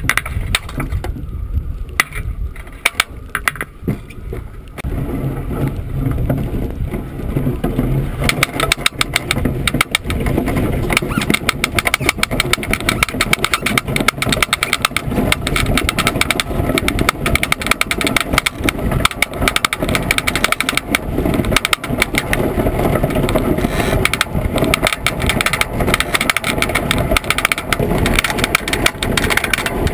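Iceboat running across lake ice: a steady rumble with fast rattling from the runners and frame, mixed with wind buffeting the boat-mounted microphone. It gets louder about five seconds in and again a few seconds later as the boat picks up speed.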